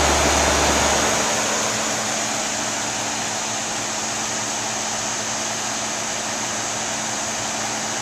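1980s Carrier Round One heat pump outdoor unit running: a steady rush of air from its top fan with a steady low hum underneath.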